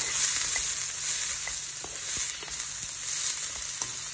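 Chopped onion and sliced green chillies sizzling in hot sesame oil: a steady frying hiss with small scattered pops.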